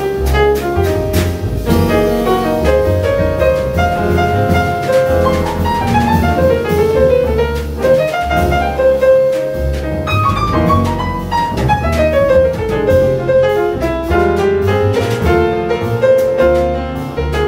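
Live modern jazz ballad: piano leading over plucked double bass and drums, with quick falling runs on the piano about ten seconds in.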